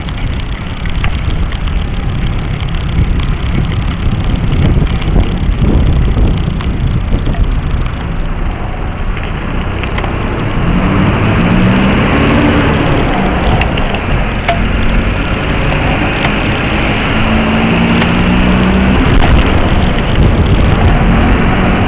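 Wind buffeting and road rumble on a small action camera mounted low on a moving bicycle, with city motor traffic passing. About halfway through a louder hiss comes in, with the hum of vehicle engines going by.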